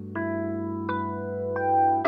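Soft electric piano music: held chords over a low sustained note, with new notes struck three times.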